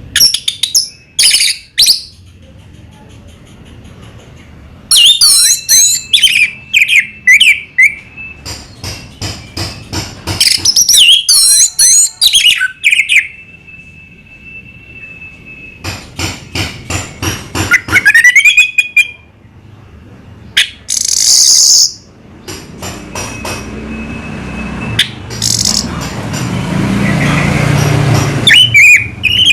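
Orange-headed thrush singing: loud phrases of sliding whistles and quick runs of repeated notes, broken by short pauses, with one long steady whistle about halfway through. A low rumble builds in the last several seconds.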